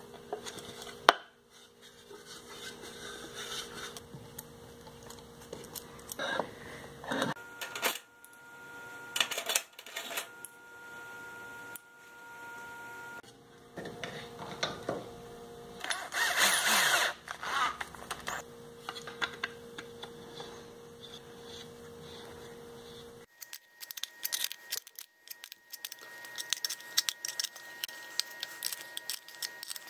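Handling of a wooden shovel's parts and its metal hardware: scattered knocks, clicks and metallic clinks as the handle and blade are fitted together and a bolt is tightened with a small wrench, with a denser run of clicks near the end over a faint steady hum.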